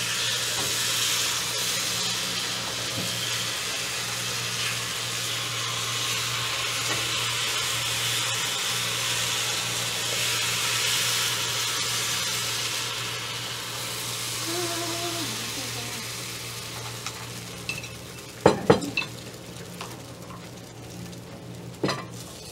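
Rice-flour batter sizzling steadily as it is poured into the wells of a hot banh khot pan, the sizzle easing off about two-thirds of the way through. Near the end come a few sharp clinks of utensils against the pan.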